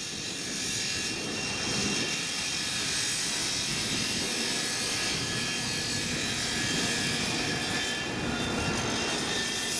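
Diesel locomotive running steadily as it moves slowly with a rake of flat wagons, with faint high whining tones over the engine noise.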